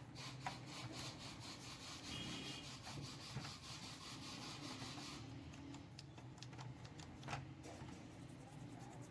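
Faint rubbing and scraping with scattered small clicks as deposits are cleaned by hand from the seized idle air control valve of a throttle body. The scraping eases off about five seconds in.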